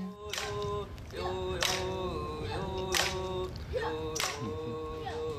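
A group of boys singing a Native American song in unison with long, bending held notes, while a hand-held wooden clapper stick is struck about once every second and a quarter.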